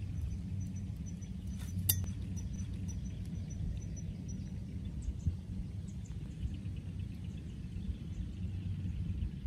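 Outdoor ambience with a steady low rumble and a faint, high chirping that repeats about three times a second for the first few seconds. One sharp clink comes about two seconds in.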